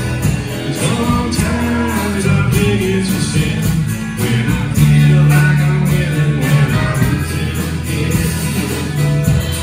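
Live country-rock band playing: electric and acoustic guitars, bass guitar and a drum kit keeping a steady beat.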